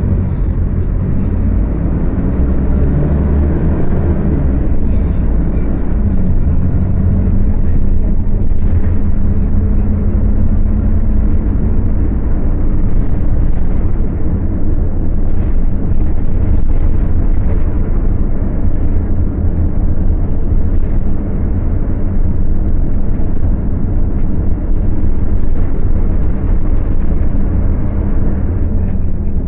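Scania K250UB city bus diesel engine running under way, its note climbing in the first few seconds and then holding steady. It runs at high revs and whines loudly.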